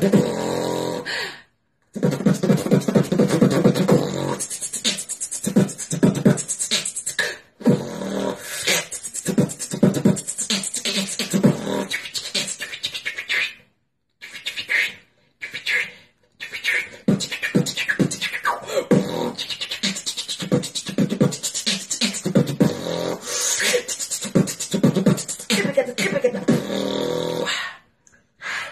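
Beatboxing: a person making drum sounds with the mouth, quick sharp kick and snare strokes in a steady rhythm with stretches of low humming bass. The performance stops for a few brief silences.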